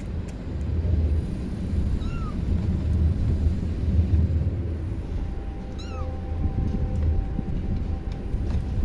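A kitten gives two short, high mews that rise and fall in pitch, about two seconds in and again about six seconds in, over a steady low rumble.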